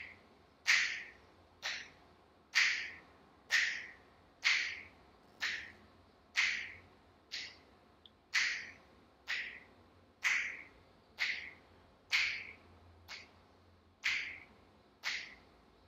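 A man snapping his fingers at a steady pace of about one snap a second, each snap a sharp click that dies away at once. The snaps keep the beat for counting from one to twenty, one snap per number.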